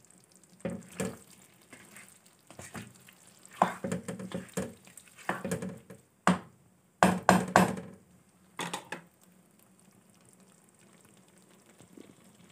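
A spatula scrapes and knocks against a nonstick karahi as a thick mash of boiled turnip and mutton is stirred, in irregular clusters of strokes. The stirring stops about nine seconds in.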